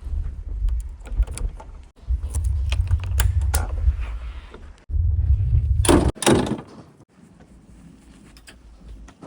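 Heavy earthmoving machine's diesel engine rumbling under load, with clanks and knocks of the bucket and a loud scraping, clattering rush about six seconds in as material is dumped or scraped. The rumble stops abruptly several times, then only fainter knocks remain.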